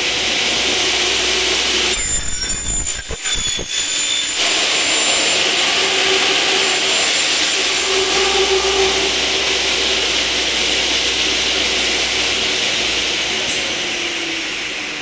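GRAULE ZS 170 N console circular saw running: the motor comes up to speed, the blade cuts through a hollow aluminium profile with a loud steady whine, and the sound fades near the end as the saw winds down. About two seconds in there is a short uneven rattling stretch.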